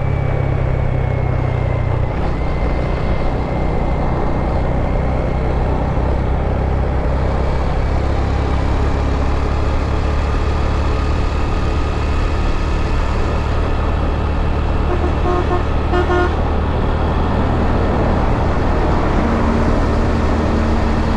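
Motor scooter engine running steadily while riding, with wind and road noise. About fifteen seconds in, a vehicle horn gives three short toots.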